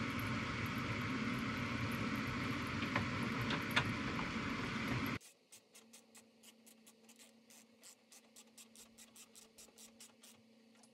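Steady background hiss and hum with a few light clicks of a screwdriver on the headlight's mounting screws. About halfway in, the sound drops abruptly to near quiet, leaving a faint run of quick, even ticks, about five a second, as the screws are turned in by hand.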